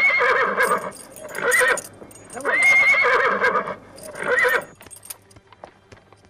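A horse neighing twice. Each long, high call is followed by a short one. Scattered hoof steps sound on the straw-covered ground after the second neigh.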